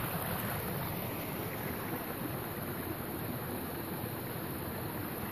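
Steady, even rushing noise, with no distinct events.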